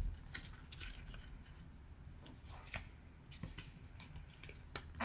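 Square sheet of origami paper being handled and folded: faint, scattered rustles and crackles of paper.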